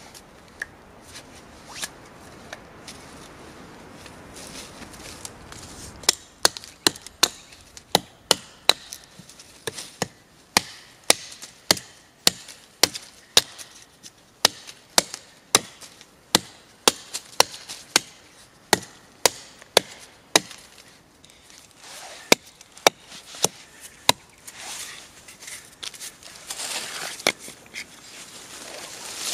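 A hand tool striking wood in sharp, regular blows, about two a second, for some fifteen seconds. Before the blows there is a faint rubbing or scraping noise, and after them softer rustling.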